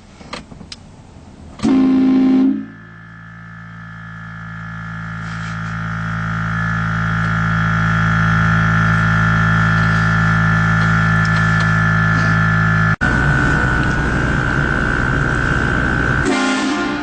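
Truck-mounted train horn: a short blast about two seconds in, then a long steady chord of several tones that swells over a few seconds and holds, cutting off near the end.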